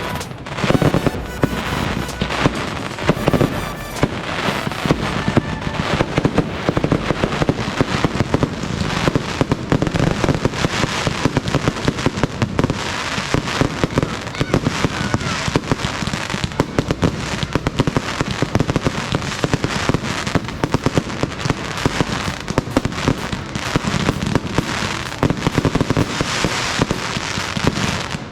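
Fireworks going off in rapid, unbroken succession: a dense stream of bangs and crackles.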